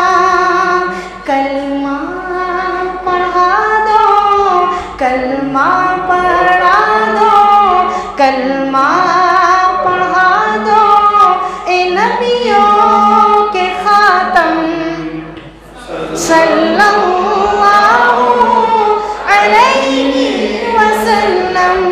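A man singing a naat, an Urdu devotional poem in praise of the Prophet, unaccompanied, in a high voice with long, ornamented phrases that glide between held notes. There is a short pause for breath about two-thirds of the way through.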